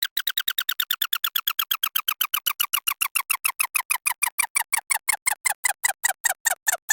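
A synthesized electronic sound effect: a train of short blips, each with a slight downward chirp. The blips start at about nine a second and slow steadily to about three a second, while the pitch of the whole train falls.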